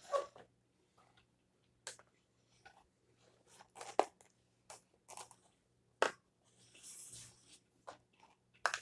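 Corrugated cardboard pizza box being handled and tipped up on a tabletop: a string of knocks and taps, with a scraping rustle about seven seconds in. A faint steady hum runs underneath.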